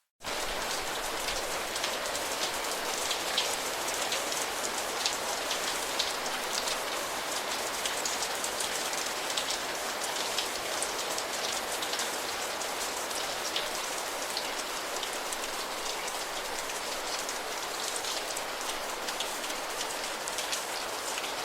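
Steady rain falling, an even hiss with many sharp, scattered drop impacts ticking through it. It cuts in abruptly at the very start.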